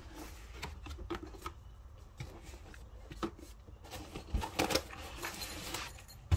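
Cardboard pistol box being handled and its lid opened, with scattered taps and knocks. About two-thirds through, a rustle and scrape as a soft nylon pistol case slides out of the box.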